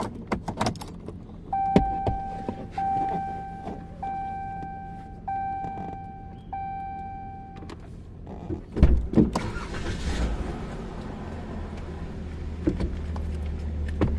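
A car's warning chime sounds five times, each a steady tone lasting about a second. A thump follows, and then a low, steady engine hum runs on.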